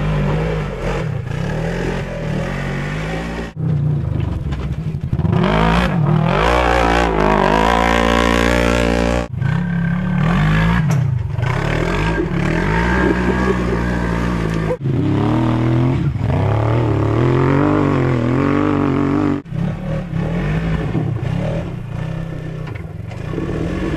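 Side-by-side UTV engines revving hard as the machines climb a rocky slope, pitch rising and falling with the throttle. It is several separate runs joined by sudden cuts.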